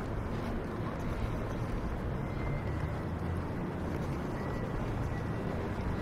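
Steady city street ambience with a low rumble of traffic.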